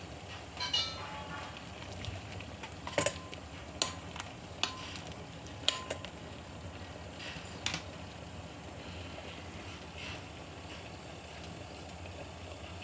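A utensil clinking against the cooking pot about six times over several seconds, some strikes leaving a short metallic ring, over a low steady hum.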